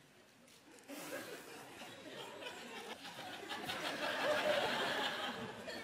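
Studio audience laughing, starting about a second in and swelling over the next few seconds.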